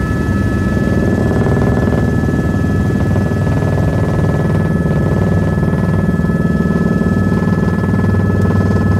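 Helicopter cabin noise: a loud, steady low drone from the rotors and engine, with two high whining tones held constant over it.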